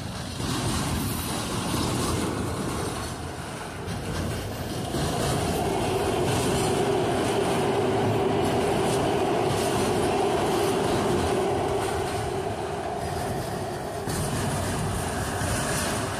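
Autorack freight cars rolling past on steel rails, a continuous rumble and clatter of wheels on track. A steady wheel squeal comes in about five seconds in and fades a few seconds before the end.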